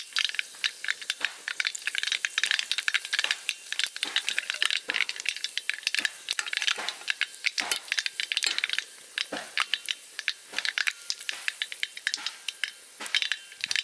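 Mustard seeds popping in hot oil in a metal kadai: a dense, irregular crackle of small sharp pops that goes on throughout. It marks the tempering stage, when the oil is hot enough for the seeds to burst.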